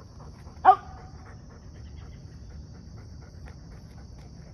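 A dog panting in quick, faint breaths after letting go of a tug toy on command.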